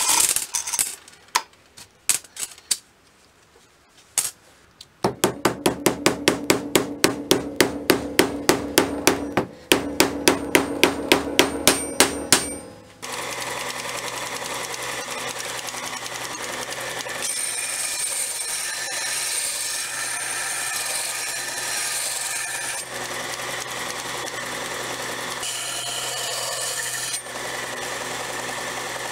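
An aerosol spray can hisses briefly, followed by a few clicks. Then comes a run of quick, even metallic strikes with a ringing tone, about three a second, for around eight seconds. From about thirteen seconds in, a belt grinder runs steadily as the hatchet's edge is ground on the sanding belt to sharpen it.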